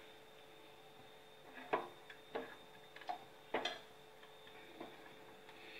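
A steel ladle stirring liquid gravy in a stainless steel pot, giving about five light, irregular metal-on-metal clinks and taps against the pot.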